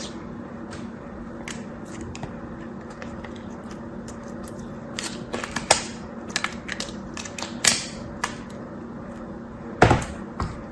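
Black glitter slime with sequins being squished and pressed into a plastic tub, giving scattered small sticky clicks and pops that come thicker past the middle. A single loud knock comes near the end, over a steady low hum.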